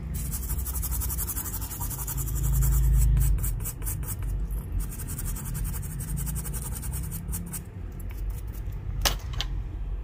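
Rapid scratchy scrubbing strokes of cleaning a freshly soldered charging-port joint area on a phone circuit board, over a low steady hum, with one sharp click about nine seconds in.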